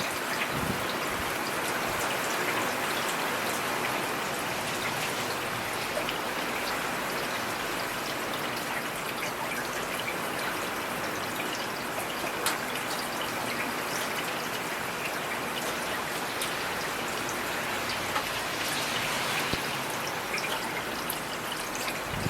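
Steady rainfall: an even hiss with scattered sharp ticks of single drops, one a little louder about twelve seconds in.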